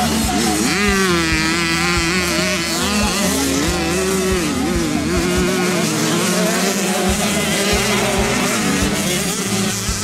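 Several motocross bike engines revving, their pitch rising and falling in quick waves as the riders work the throttle on the dirt track.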